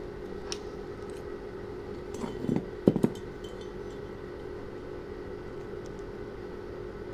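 A few metal clinks and knocks as a caliper is picked up from among steel hand tools and set against a motorcycle cylinder head, the loudest pair about three seconds in. A steady low hum runs underneath.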